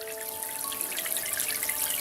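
Soft background music of held notes changing every half second or so, over a faint crackling trickle like running water.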